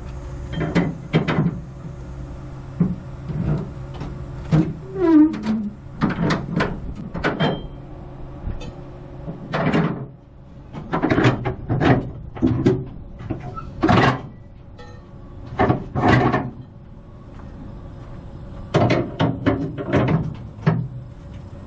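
Flatbed trailer strap winches being turned with a winch bar: irregular metal clanks and clicks, some ringing briefly, coming in quick runs with short pauses between.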